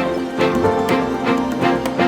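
Background music: a song with a steady beat, strings among the instruments.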